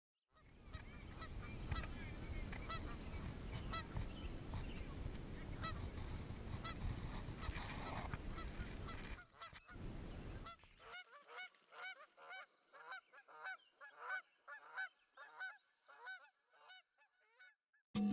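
Repeated honking bird calls, goose-like, many in quick succession. For the first ten seconds or so they sit over a steady low rushing noise, which stops about eleven seconds in; after that the calls go on alone.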